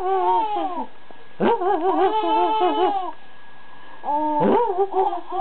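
Baby girl laughing in long, high, wavering bouts: one ending just before a second in, another from about a second and a half to three seconds, and a third starting about four seconds in. A short sharp sound opens the later bouts, the father's coughs that set her laughing.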